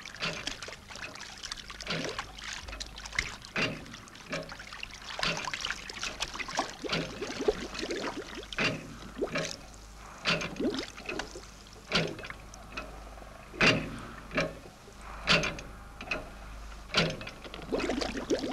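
River water splashing and gurgling in irregular bursts as a diver in standard hard-hat diving dress climbs down into it and his exhaust air bubbles up and breaks at the surface.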